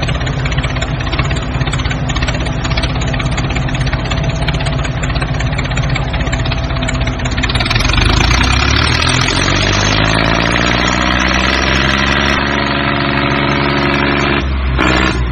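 Construction vehicle's engine idling with a rough, steady note, then revving up about halfway through and holding at a higher speed, with a brief drop near the end.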